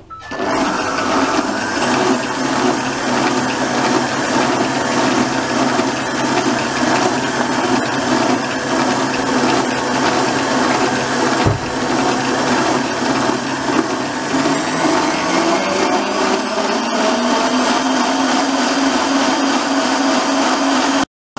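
Electric stand mixer running steadily, its balloon whisk beating cold whipping cream in a stainless steel bowl as the cream stiffens into whipped cream. The motor's hum shifts slightly higher about fifteen seconds in, and the sound stops abruptly near the end.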